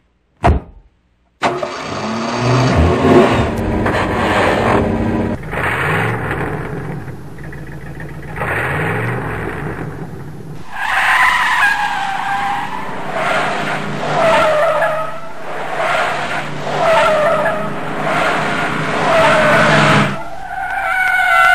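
Car engine revving with rising pitch sweeps, then a run of repeated tyre squeals over the engine, about one every second or two.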